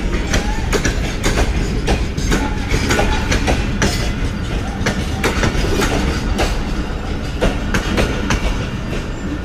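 Pakistan Railways passenger train running: a steady, loud rumble of wheels on track, with frequent irregular knocks and clacks.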